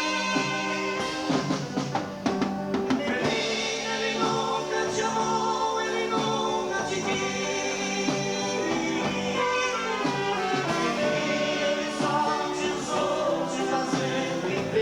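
A live dance band playing a slow romantic ballad, with a singer over sustained instrumental chords.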